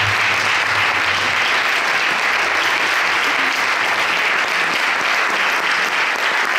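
Audience applauding, a steady, unbroken clapping.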